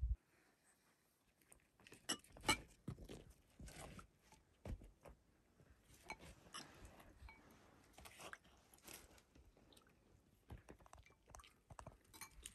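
Flatbread being torn and broken by hand: scattered soft crackles and crunches, starting about two seconds in, with a few sharper clicks among them.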